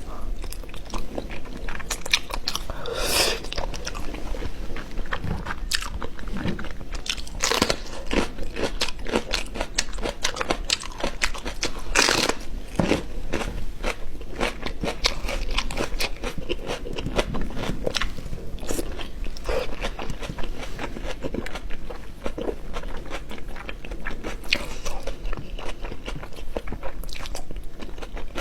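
Close-miked eating: continual crackly, crunchy chewing, with a few louder crunching bites standing out in the first half.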